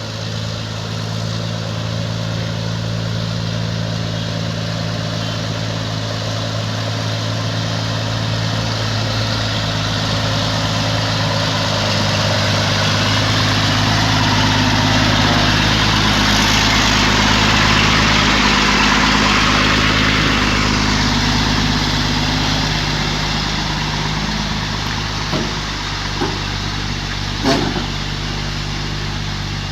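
A vehicle engine running steadily at idle, while the road noise of a passing vehicle swells, peaks about halfway through and fades away. A few short knocks come near the end.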